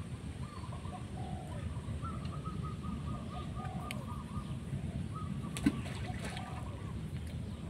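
Birds calling, with cooing doves, including a fast run of short repeated notes in the first half, over a steady low rumble. A single sharp click a little before the end is the loudest sound.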